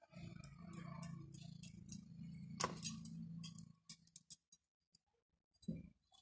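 A spoon scraping and clinking against a steel bowl as a sticky grated-coconut mixture is stirred and scooped: scattered light ticks and one sharper click about two and a half seconds in. A low steady hum runs under the first half and stops a little past the middle.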